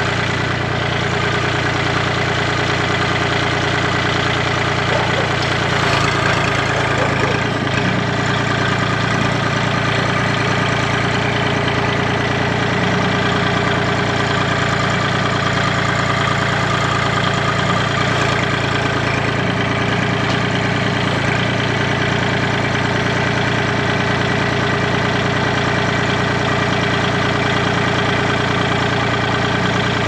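Engine idling steadily at an even pitch.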